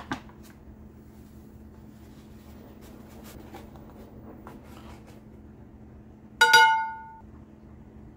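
Faint rustle of dry baking ingredients being poured into a glass mixing bowl, then, about six seconds in, one sharp clink of a metal measuring spoon against the glass bowl, which rings briefly.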